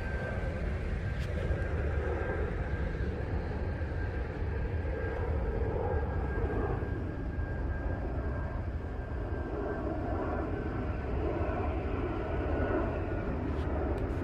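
Steady low mechanical drone from a distant engine, with a faint high whine that fades out about ten seconds in.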